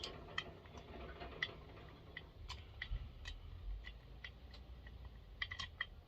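Scattered light clicks and taps of small bolts and metal parts being handled during a chainsaw teardown, irregular, with a quick cluster near the end.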